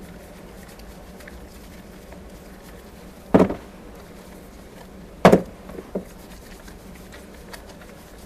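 Purple soap bar being lathered: two short, loud handling sounds about two seconds apart, the second followed by two smaller ones, over a faint steady background.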